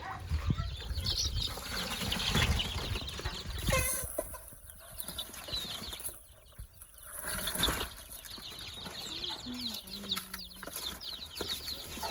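Farm poultry clucking and calling, with many short high chirps throughout and a low rumble during the first few seconds.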